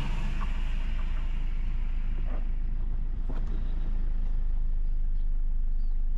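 Toyota Fortuner's turbo-diesel engine and road noise while driving on a post-repair road test: a steady low drone. A few faint short squeaks come through in the middle.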